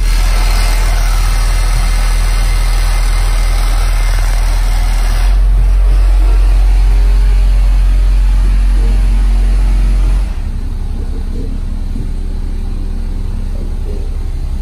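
Music played loudly through a 15-inch American Bass XFL subwoofer on a TARAMPS Trio amplifier, almost all of it deep bass notes. A long, held low note comes in about five seconds in and is the loudest part; it gives way to a different bass line about ten seconds in.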